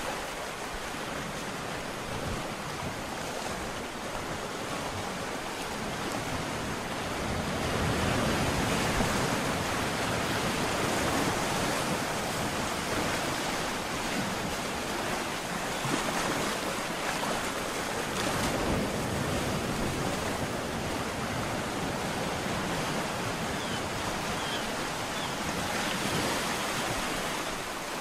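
Ocean surf: waves breaking and washing in as a continuous rush, swelling a little louder about eight seconds in.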